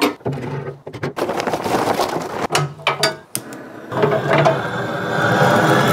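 Handheld propane torch with a yellow gas cylinder, lit to start the fire in a steel smoker's firebox. First comes a run of metal clicks and clatter; from about four seconds in the torch flame runs as a steady hiss.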